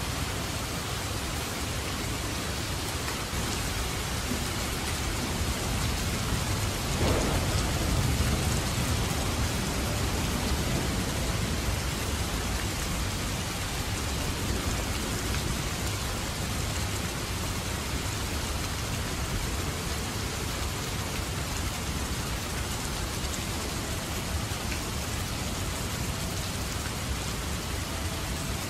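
Heavy downpour of rain falling steadily, with a thunderclap about seven seconds in that cracks and then rumbles for a few seconds before fading back under the rain.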